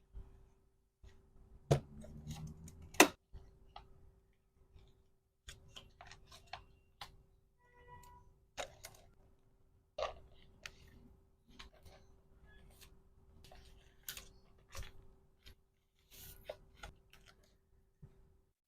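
Hands packing small plastic items: irregular sharp clicks, taps and rustles of plastic and packaging, with two louder snaps about two and three seconds in and a brief squeak near the middle. A faint steady hum runs underneath.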